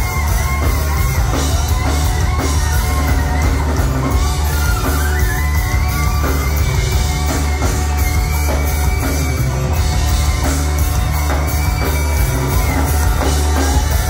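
Live rock band playing loudly, with electric guitars, keyboards, drums and saxophone over a heavy, steady bass.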